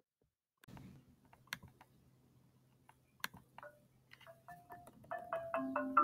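Background music of short, pitched mallet-percussion notes, like a marimba, comes in about four seconds in and grows louder. Before it there is only a faint low hum with a few soft clicks.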